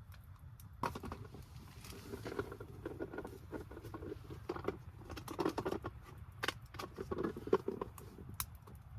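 Irregular light taps, clicks and rustling of small things being handled, starting about a second in.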